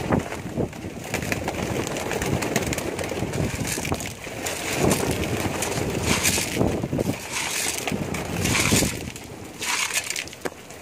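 A flock of domestic pigeons cooing steadily, with a few short rustling bursts about six, eight and a half and nine and a half seconds in.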